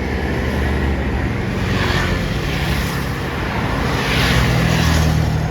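Bus engines running close by with a deep rumble, swelling twice as vehicles pass through the toll gate.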